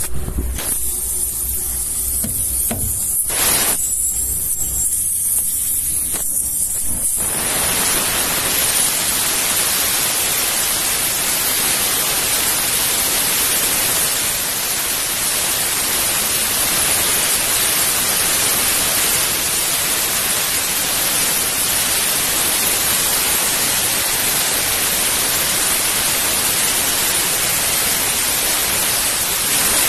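Air rushing out of a truck tyre being let down through its valve: a steady, loud hiss that starts about seven seconds in, after a quieter stretch with a faint high hiss and a few handling knocks.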